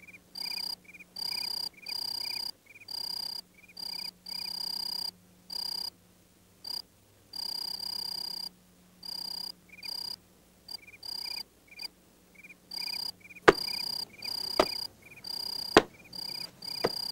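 Night insects, crickets, chirping in repeated pulses of about half a second each, with smaller, quicker chirps between them. Near the end, four sharp knocks about a second apart are the loudest sounds.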